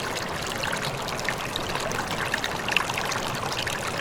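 Flowing water trickling and babbling steadily, with many small splashes.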